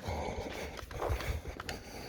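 Footsteps of someone walking, with irregular dull thuds and a few short sharp clicks.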